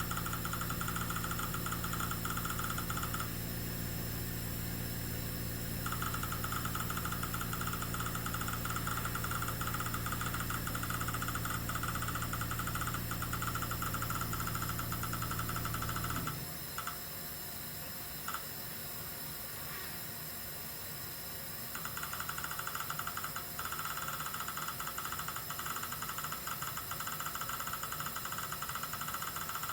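A steady low motor hum that stops about halfway through, with a higher whine over it that cuts out and comes back twice.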